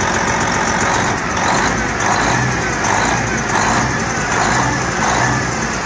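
Scania V8 diesel truck engine running at idle on its first run after being fitted, with a rhythmic swell about twice a second.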